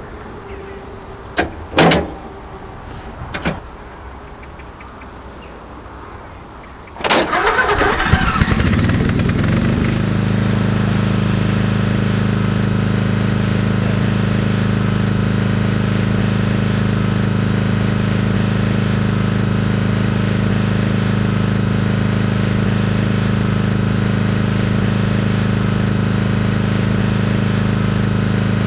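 A few clicks, then about seven seconds in a ride-on lawn mower engine starts up and settles into a steady run.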